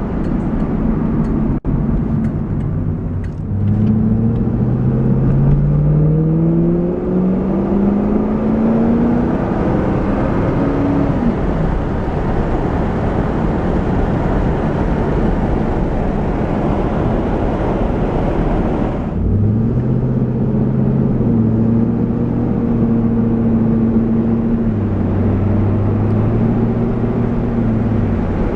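A Chevrolet Camaro Z28's 5.7-litre LS1 V8 accelerating on the road, its revs rising through the gears with a gear change partway. Then comes a steady rush of road and wind noise. About two-thirds in, this gives way abruptly to the engine's steady drone at cruising revs, its pitch stepping slightly.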